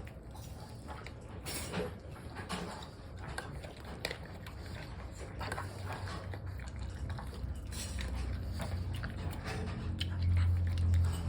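A pug eating from its bowl, with irregular crunching and chewing bites. A low droning sound builds near the end.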